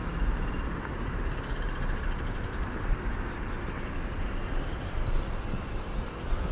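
City street traffic noise: a steady rush of passing vehicles with a low, uneven rumble underneath.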